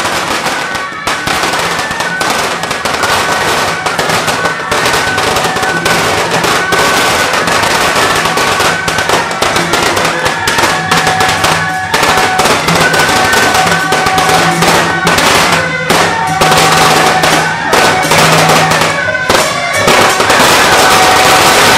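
Strings of firecrackers going off in a rapid, continuous crackle that grows louder toward the end, with a melody played over them.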